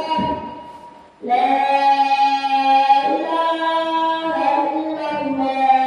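Singing voices chanting a melody in long held notes, a sung recitation of Arabic verse. The singing fades out in the first second and resumes about a second in, moving through several sustained pitches.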